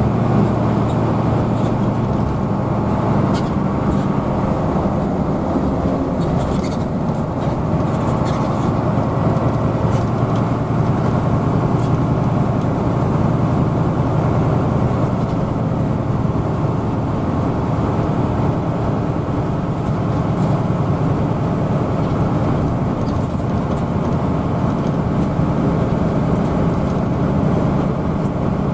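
Hino AK bus's diesel engine and road noise as a steady, even drone while the bus travels along.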